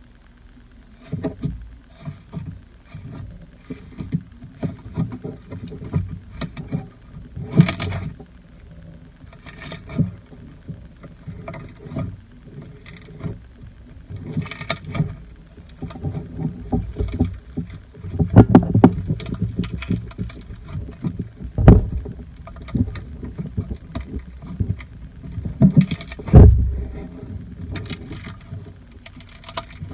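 Hands squishing and stretching slime: irregular wet squelches and small pops, with a few louder low thumps in the second half.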